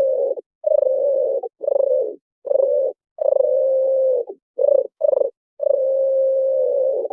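Pigeon cooing: about eight coos of uneven length, from short ones to one held for over a second near the end, each starting and stopping cleanly with silence between.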